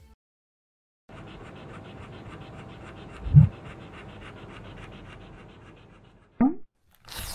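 A dog's rapid, rhythmic breathing, starting about a second in and fading out after about six seconds, with one dull thump partway through, the loudest sound here, and a short rising swish near the end.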